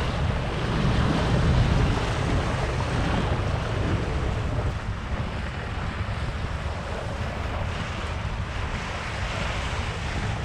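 Steady wind buffeting the microphone, with water rushing past the hull of a sailboat under way.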